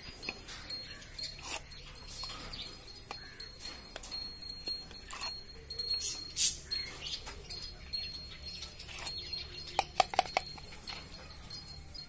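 A plastic syringe stirring and tapping inside a plastic cup, whipping a raw egg and fish oil mixture to a froth: irregular light clicks and clinks of plastic on plastic.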